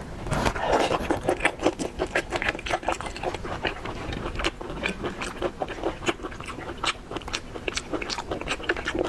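Close-miked eating of a large lobster's meat and roe: biting, wet smacking and chewing with many small clicks and crunches, heaviest about half a second in.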